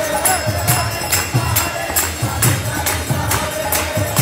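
Kirtan: a group chanting to harmonium, with two-headed mridanga drums and karatal hand cymbals clashing in a steady beat about three times a second.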